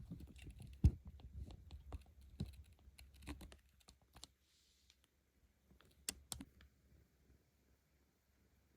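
Irregular small clicks and taps over a low rumble for the first four seconds, then a brief pause and a few sharper clicks about six seconds in.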